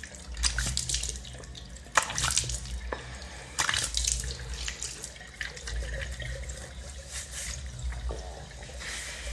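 A face being rinsed at a bathroom sink: handfuls of water splashed onto the face and falling back into the basin in irregular splashes, over running tap water.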